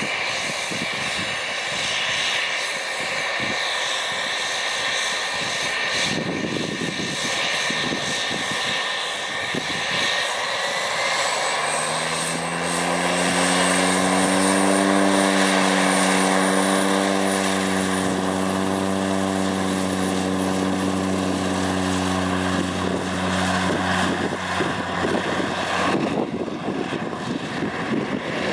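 De Havilland DHC-3 Turbine Otter's turboprop engine and propeller on a ski-equipped takeoff run. A steady turbine whine rises in pitch about ten seconds in as power comes up. The deep propeller drone then swells, loudest as the plane passes, and fades as it runs away down the snow runway.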